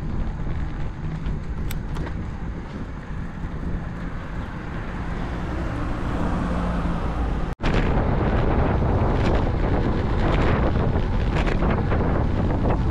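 Wind rushing over an action camera's microphone on a moving road bike, a steady buffeting noise. About halfway through it cuts out for an instant, then comes back louder.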